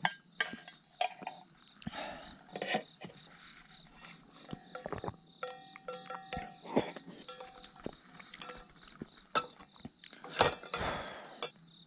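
Tableware clinking and knocking during a meal, scattered irregular clicks and taps, over a steady high chirring of insects. A brief run of clear ringing tones comes in the middle.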